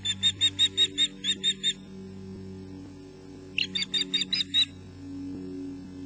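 Osprey giving alarm calls at an intruder near the nest: two quick runs of sharp, high, repeated whistled calls, about nine in the first two seconds and about seven more after a short pause.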